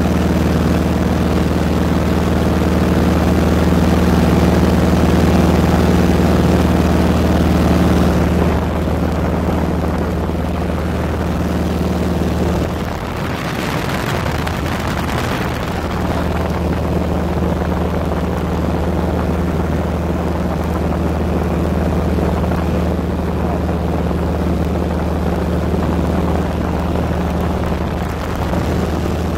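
Light propeller aircraft's engine and propeller running steadily with a low drone, heard from inside the cabin. About eight seconds in the higher tones fade, and a brief rush of noise comes near the middle.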